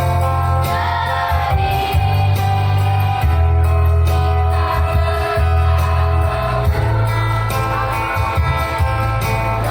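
School choir singing with loud amplified instrumental accompaniment carrying a heavy, sustained bass.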